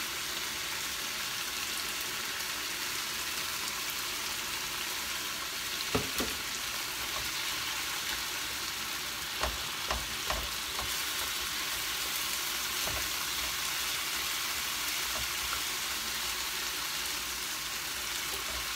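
Broccoli stir-frying in a frying pan, a steady sizzle as it is turned with chopsticks. There are a few short clicks in the middle.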